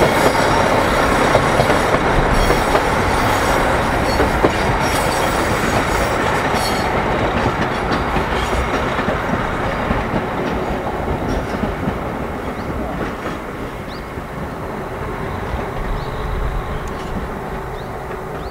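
JR Hokkaido KiHa 261-1000 series diesel express train running past, a dense rumble with wheels clattering over the rail joints. The sound slowly fades as the train draws away.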